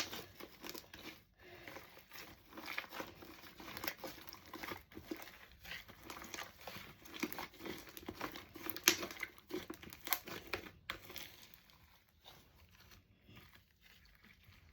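Hands kneading sticky slime of glue and shaving cream with no activator yet: a dense run of small wet crackles and pops that grows sparser and fainter about eleven seconds in.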